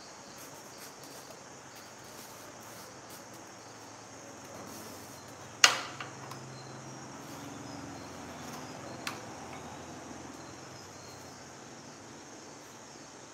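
Faint steady chirping of crickets in the background, with one sharp knock about halfway through and a lighter knock a few seconds later while cardboard pieces are handled.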